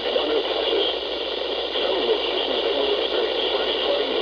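Weather radio receiver playing a weak broadcast: steady hiss and static.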